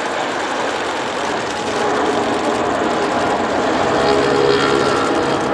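Rolls-Royce Trent 1000 turbofans of a Boeing 787-9 during its landing rollout, a steady rushing jet noise with a faint hum that grows louder from about two seconds in.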